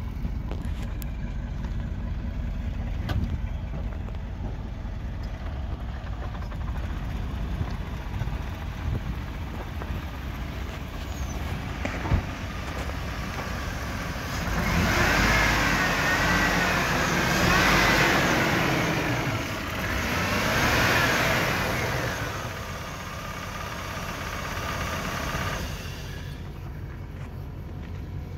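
2001 Chevrolet K2500 pickup's V8 engine idling steadily. For about eight seconds in the middle it is louder, with a wavering higher whine, as it is heard up close in the open engine bay.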